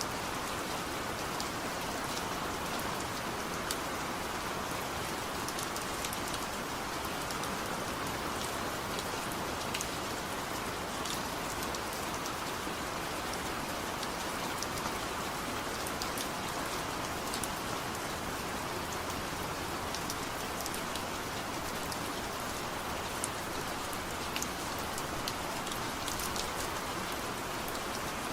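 Steady rain falling on a surface, an even hiss with scattered individual drop taps, no thunder.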